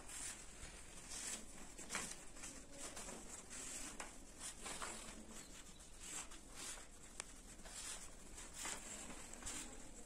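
Paper being handled and drawn on with felt-tip sketch pens: faint, irregular rustling and scratching.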